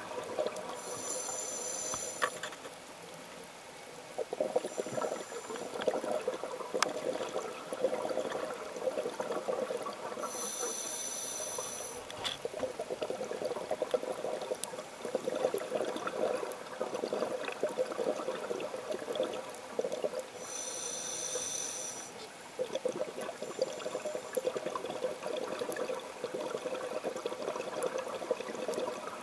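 A scuba diver breathing through a regulator, heard underwater: three high hissing inhalations about ten seconds apart, each followed by a long crackling rush of exhaled bubbles.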